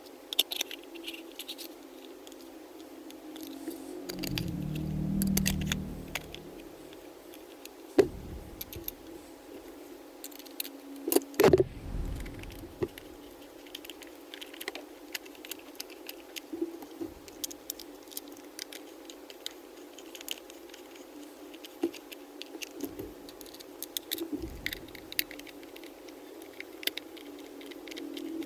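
Scattered light clicks and rattles, with a sharp knock about 8 s in and a cluster of knocks around 11 s.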